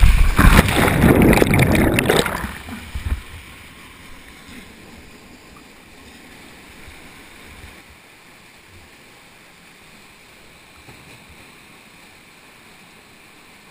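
Rushing water and a heavy splash for about two and a half seconds as a person slides down a water-worn rock chute and drops into a canyon pool. After that comes a faint, steady pouring of a small waterfall into the pool.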